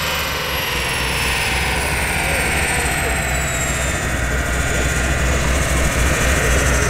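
Chevrolet Camaro running on a chassis dynamometer and winding down: a steady low rumble under several high whines from the engine, driveline and dyno rollers, all falling slowly in pitch.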